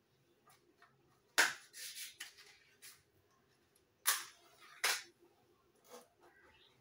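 Kitchen utensils knocking and clattering: a handful of sharp knocks, the loudest about one and a half seconds in and again about four seconds in.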